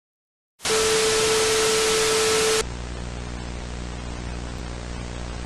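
Silence, then about half a second in a sudden burst of loud static hiss with a steady mid-pitched tone in it. About two seconds later this drops abruptly to quieter static over a low hum.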